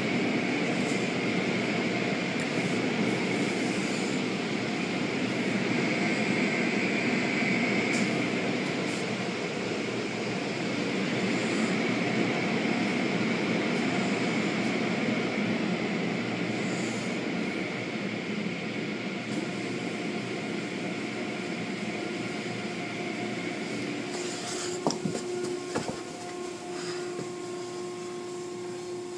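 Automatic car wash machinery running: a steady rush of spray and motor noise, with a few sharp knocks near the end, after which the noise drops a little.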